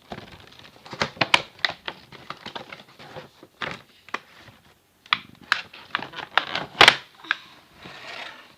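Cardboard box and plastic packaging of an action camera being opened and handled: a quick, irregular run of clicks and taps, with a short rustle near the end.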